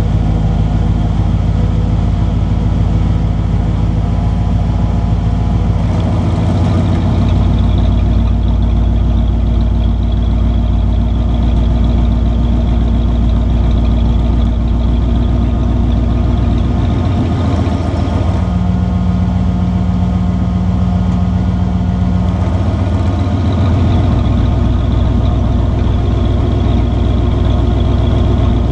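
1995 Ford F150's 302 V8 idling through a catback exhaust with an exhaust cutout, a steady rumble. The exhaust note changes character about six seconds in, again around seventeen seconds, and once more near twenty-three seconds.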